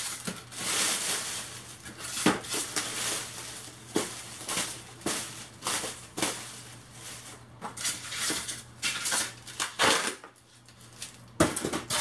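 Thin plastic trash-bag wrapping rustling and crinkling in irregular bursts as it is pulled and handled, with a few sharp clicks and knocks.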